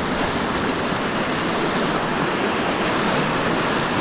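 Whitewater rapids rushing close by, a steady even noise of churning river water.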